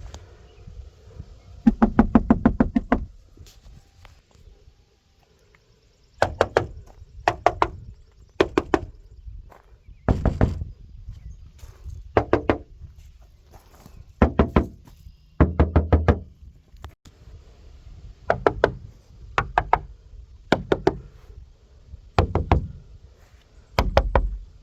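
Knuckles knocking on Toyota Tercel car body panels in quick bursts of several raps, one panel after another with short pauses between. It is a knock test of how much the panels resonate, comparing them with and without sound deadener.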